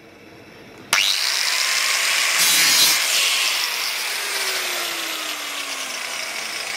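A small hand-held rotary tool with a cutting disc starts about a second in and runs steadily, grinding through model railway rail to cut an isolating gap for the electrical sections. It is harshest around two and a half seconds in.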